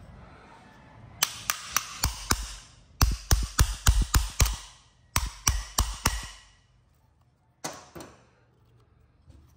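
Small brass hammer tapping on the metal of a 1950s Sears and Roebuck chainsaw's recoil starter, knocking a mushroomed metal edge back down around the screw heads. Three quick runs of light, ringing taps, about four a second, then a single tap near the end.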